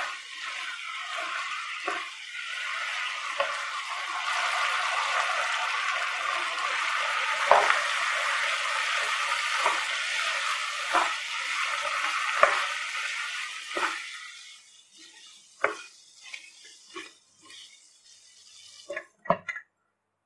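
Chicken sizzling as it fries in a pan, with a spoon stirring and knocking against the pan every second or two. The sizzle fades out about two thirds of the way through, leaving a few scattered scrapes and taps.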